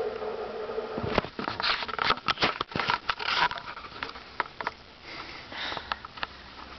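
A quick run of sharp clicks, knocks and rustles of a handheld camera being grabbed and turned around, then a short breath close to the microphone.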